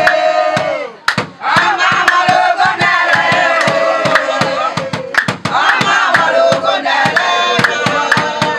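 A group of women singing a traditional song together over a steady beat of hand drum and hand claps, about four beats a second, with a brief break about a second in.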